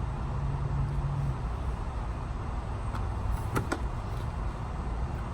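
Steady low rumble and hiss, with a low hum for about the first second and a couple of brief clicks about three and a half seconds in.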